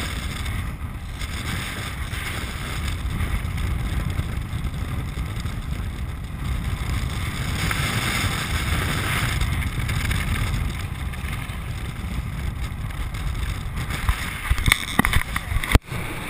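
Land sailer moving across a dry lake bed: a steady low rumble and rush of wind and rolling over the hard ground. A few sharp clicks and knocks come near the end.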